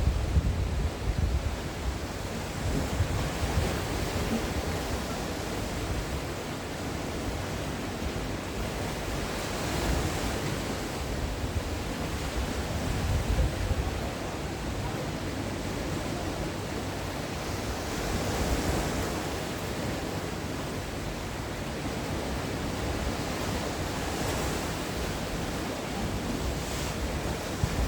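Sea waves breaking on a shore: a continuous wash of surf that swells with each wave every few seconds.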